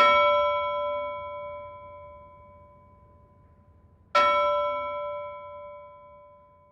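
A bell struck twice, the second strike about four seconds after the first, each ring a cluster of clear tones that fade slowly.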